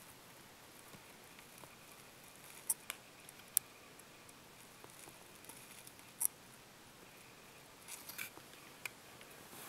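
Small scissors snipping into a crested gecko eggshell: a handful of sharp, scattered clicks over a faint background hiss.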